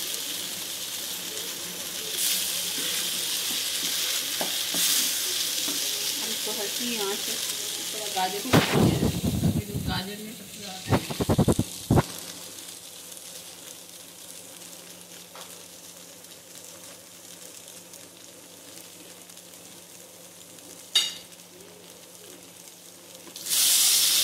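Chicken, carrot and cabbage sizzling in oil in a wok as they are stir-fried with a wooden spoon. The sizzle dies down after the middle and comes back loud near the end, with a few loud knocks between about 8 and 12 seconds in.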